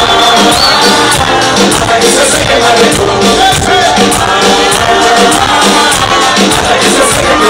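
Live Cuban reggaeton concert music played loud through a large sound system: a singing voice over a steady, repeating beat.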